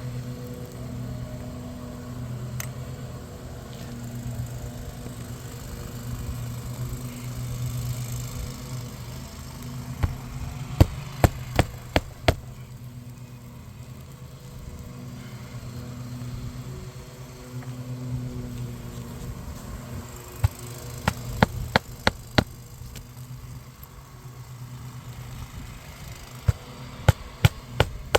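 Three runs of four to six sharp hammer blows, about two a second, driving roofing nails into a replacement asphalt shingle, over a steady low hum.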